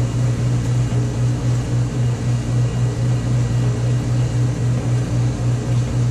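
1953 Hobart 20-quart planetary mixer running, a loud steady electric-motor hum with a fast, even pulsing as the attachment turns in the bowl.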